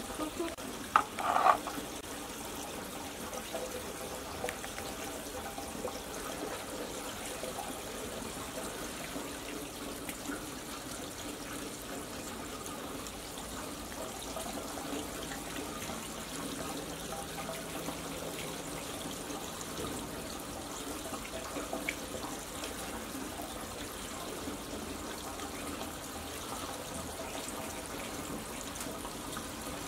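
Steady trickling rush of running water. About a second in, a brief high-pitched sound stands out above it.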